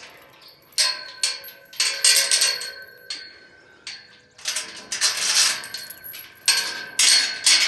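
Repeated bursts of metallic rattling and clanging, each with a ringing tone under it; the longest bursts come about two, five and seven seconds in.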